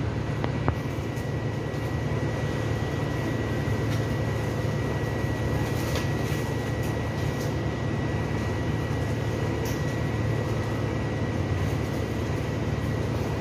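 Steady low mechanical hum with a thin, constant high whine, and a few faint light clicks.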